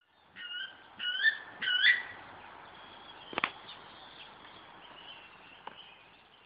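Weka calling: three short shrill whistles in quick succession, the last two sliding upward. A sharp click follows a little past the middle.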